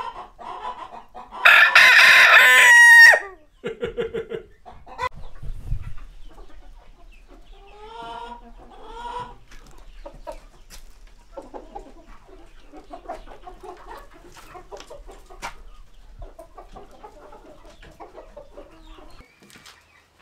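A rooster crowing once, loud, starting about a second and a half in and lasting under two seconds. Hens clucking softly on and off after it.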